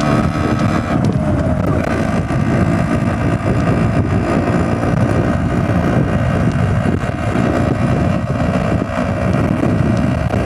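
Yamaha RX135's two-stroke single-cylinder engine running steadily under way while cruising, fitted with an exhaust chosen for its sound. Wind rumbles on the microphone.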